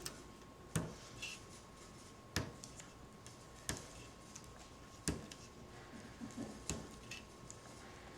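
Small sharp clicks and ticks at irregular intervals, about five louder ones and a few softer, from hands pressing rubber keyboard contact strips into place through the circuit board with a toothpick.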